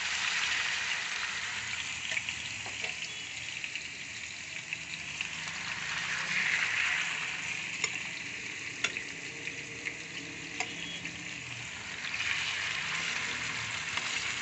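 Marinated boneless fish pieces frying in hot oil in a kadhai: a steady sizzle that swells and eases a few times, with a few sharp clicks near the middle.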